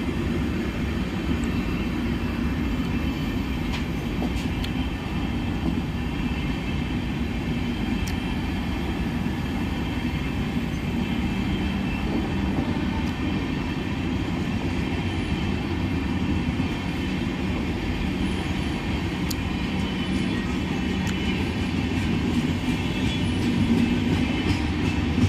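Coaches of the 15707 Amrapali Express, an Indian Railways passenger train, rolling past on the track: a steady rumble of wheels on rails, getting slightly louder near the end.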